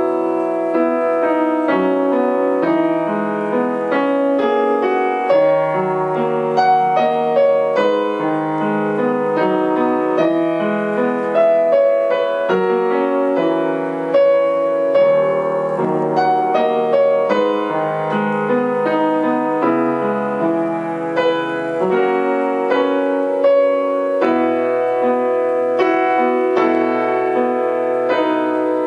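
Piano music: a continuous run of melody notes over sustained chords.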